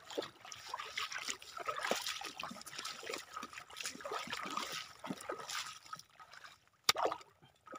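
Footsteps wading through shallow seawater over a weedy, rocky tidal flat: irregular small splashes and trickling. There is a sharp click near the end.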